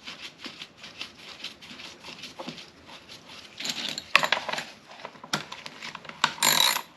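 Small metal parts clinking and scraping as a chainsaw's side cover and bar nuts are handled and fitted back on, with louder clattering about four seconds in and again near the end.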